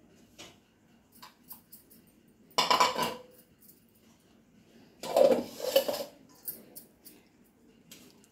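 Stainless steel mixing bowl clattering and scraping on the counter as it is handled, in two louder bursts about three and five seconds in, with small clicks between.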